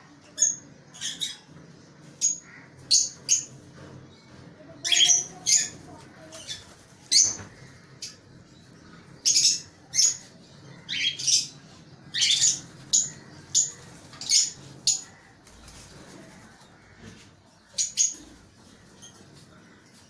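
Cockatiels and lovebirds calling: short, shrill, high-pitched chirps repeated irregularly about once a second, several in quick pairs.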